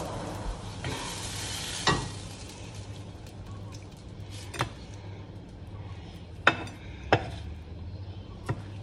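Fish fillets sizzling in a frying pan, the sizzle dropping after about two seconds, while a spatula knocks and scrapes against the pan five times in sharp clacks.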